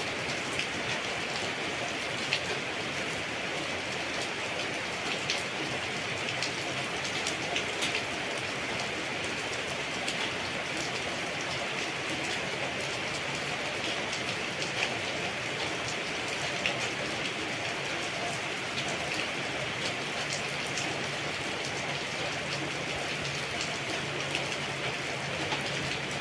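Steady rain falling in a garden, an even hiss with scattered louder drop ticks.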